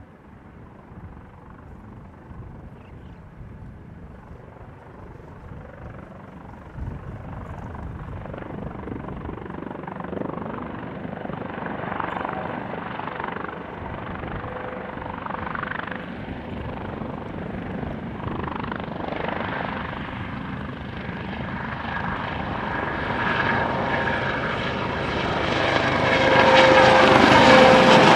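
Airbus AS365 Dauphin helicopter lifting off and climbing away, its turbines and rotors growing steadily louder as it comes closer. It is loudest near the end as it passes close by, where a steady whine shows up.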